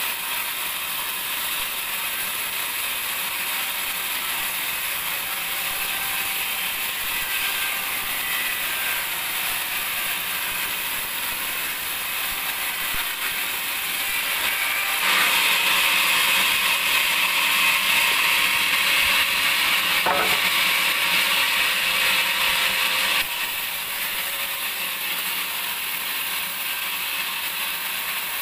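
Band sawmill running with a steady mechanical whir. Just past halfway it grows louder and fuller for about eight seconds, then drops back abruptly.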